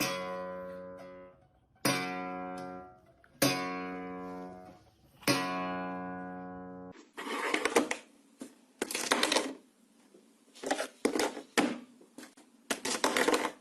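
Background music on acoustic guitar: four strummed chords, each left to ring and fade, then a run of short, scratchy strokes in the second half.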